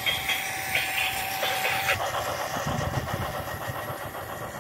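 Toy diesel locomotive running along plastic track, its small electric motor making a steady whirr.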